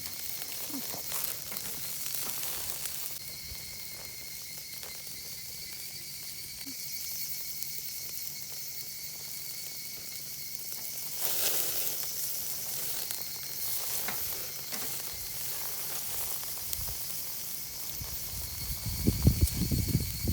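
Meat sizzling as it fries, a steady high hiss that swells briefly about halfway through. Low thumps come in near the end.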